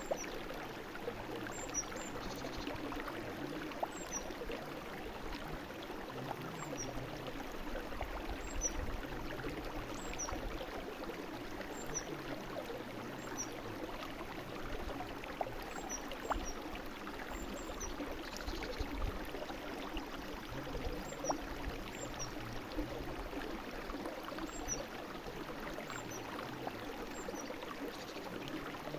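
A small brook running steadily, an even rush of water with short faint high ticks scattered through it every second or two.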